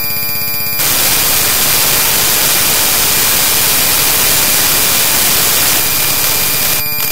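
Loud, harsh digital static from corrupted audio: a rapid buzz for the first second, then an even hiss with a few faint steady tones.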